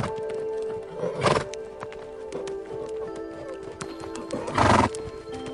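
Horses calling while sparring: two short, loud calls about three and a half seconds apart, over background music with steady held tones.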